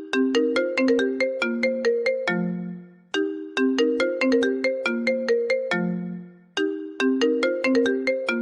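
Apple iPhone ringtone playing: a short melody of quick, decaying notes that ends on a lower held note and repeats about every three and a half seconds, three times over.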